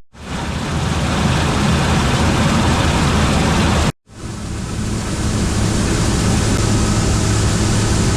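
New Holland TR89 combine harvester running steadily while harvesting oats, a loud engine hum under the rush of the threshing and cleaning gear. The sound cuts out briefly at the start and again about four seconds in, each time fading straight back up.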